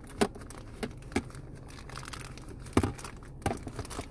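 Packaging crinkling and a handful of sharp clicks and taps as the new shift knob is handled.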